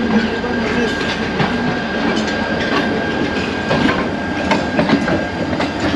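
Train running through a rail yard: wheels clicking irregularly over rail joints under a steady rumble, with a thin, steady high squeal held through most of the stretch.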